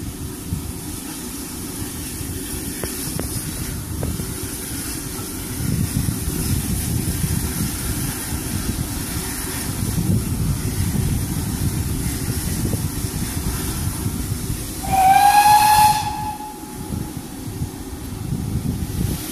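Ex-GWR large prairie tank locomotive 5199 sounding its steam whistle once, a blast of about a second some fifteen seconds in, its pitch lifting slightly as it opens. Before and after it comes a steady hiss of steam over a low rumble.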